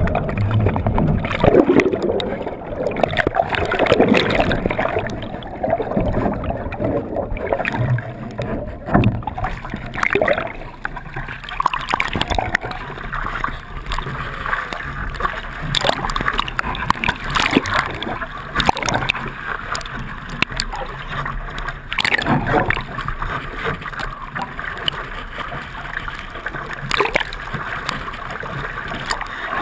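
Water rushing and splashing against the hulls of a Hobie 16 catamaran under sail, with irregular sharp slaps of spray throughout.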